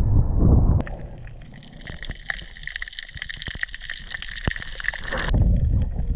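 Water and wind rushing at the camera at the surface, then, about a second in, the muffled sound heard underwater: a high hiss with many faint scattered clicks. A low rush of moving water comes back about five seconds in.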